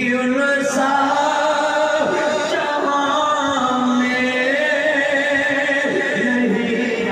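A man chanting melodically into a microphone in long, held notes.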